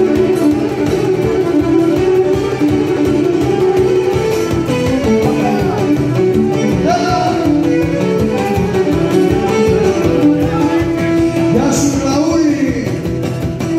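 Cretan folk music played live: a violin bowed upright on the knee carries the melody over laouto (Cretan lutes) strumming a steady rhythm.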